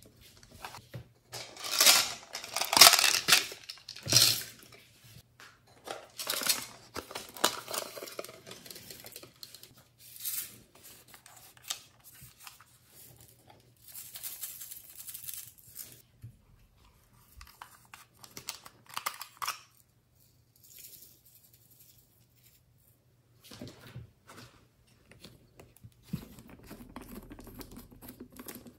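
Small plastic beads, sequins and glitter rattling and pattering as they are shaken out of small plastic containers onto slime in a glass dish, in bursts with pauses between. Near the end there is a softer, lower sound as a plastic bottle is tipped out over the dish.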